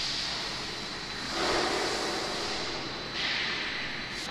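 Steady mechanical hiss with a thin high whine, broken by a louder rush of noise about a second and a half in and a sharper hiss near the end.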